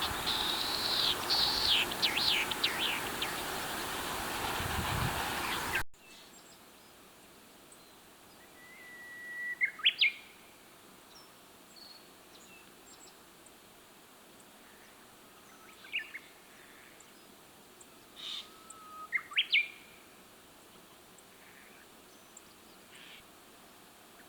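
Wild birds calling: a quick run of high chirps over a louder background hiss, then, after a sudden cut to a quieter recording, a few separate calls, some a short held note that breaks into a quick upward sweep.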